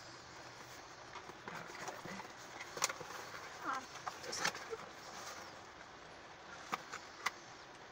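A cardboard gift box being handled and opened: rustling with a few sharp clicks and taps as the flaps and lid are worked, over a steady hiss of rain on the car.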